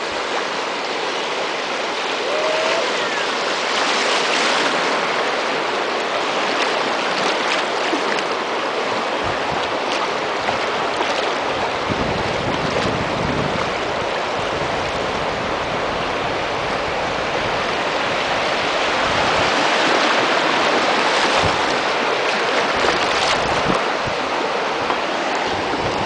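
Fast river current rushing over shallow riffles, a steady hiss of moving water, the river running high on water released from the dam. Low rumbles come and go from about nine seconds in.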